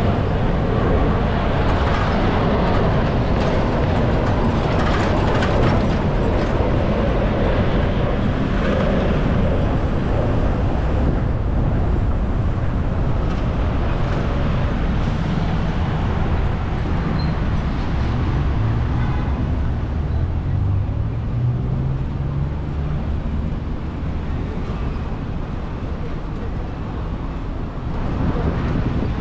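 Road and traffic noise from driving along city streets: a steady rush, with an engine nearby rising in pitch about twenty seconds in.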